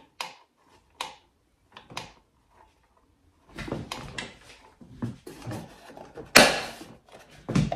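Light clicks and handling noise of a small screw and tool against a plastic brake cover, then one sharp loud plastic snap about six seconds in as a cover tab is pressed back into its slot.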